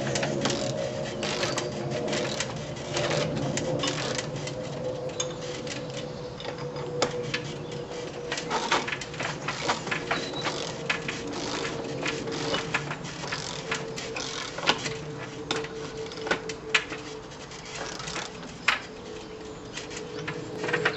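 Irregular tapping and clicking of hand tools and metal fixings against a brick wall, over a steady hum.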